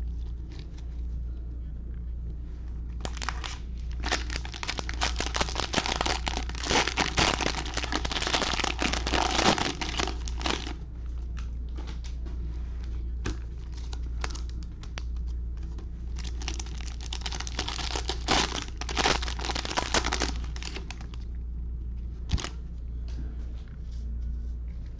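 Cellophane wrapper of a Panini Mosaic football cello pack being torn open and crumpled by hand, in two long bouts of crackling, with scattered clicks between them.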